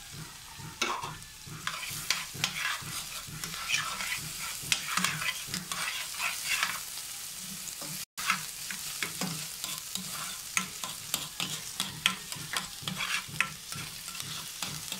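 Garlic and julienned ginger sautéing in a little hot oil in a stainless steel pan with a steady sizzle, while a spatula stirs them, scraping and clicking against the pan many times.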